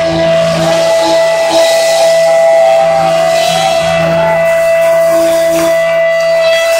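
Live rock band playing, with drum kit and electric guitar, over one long steady held note.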